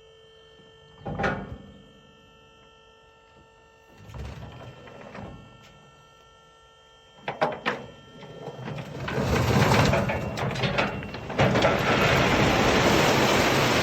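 Heavy equipment running quietly with a few metallic clanks, then from about two-thirds of the way in a loud, sustained rush of loose rock being dumped.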